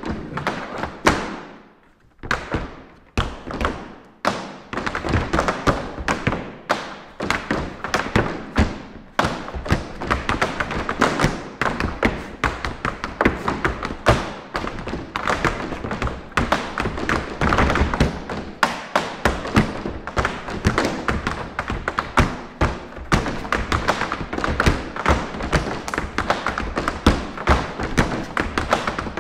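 Group of tap dancers' shoes striking the floor in a fast, dense rhythm of taps with frequent louder accents, pausing briefly about two seconds in.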